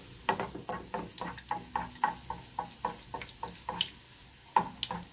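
A slotted spatula splashing hot frying oil over a gordita in a skillet to make it puff up, in quick repeated strokes about four or five a second. There is a short break about four seconds in.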